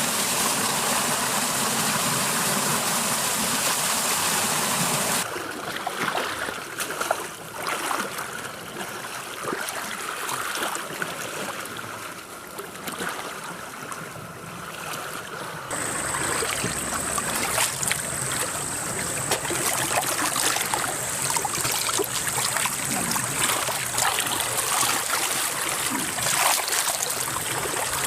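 Water sloshing and trickling as soldiers crawl through a shallow water pit (a ghillie wash), with small scattered splashes and knocks. The character of the sound changes abruptly twice, about five seconds in and again around sixteen seconds in.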